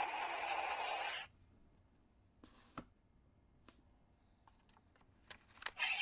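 A steady electronic sound effect from the CSM Dragvisor toy gauntlet's speaker cuts off about a second in. Then only scattered hard plastic clicks as the gauntlet is handled, gathering near the end as its dragon-head lid is lifted open.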